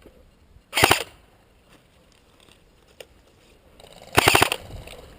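Airsoft gun firing two short bursts of rapid, full-auto shots: a brief one about a second in and a slightly longer one near the end.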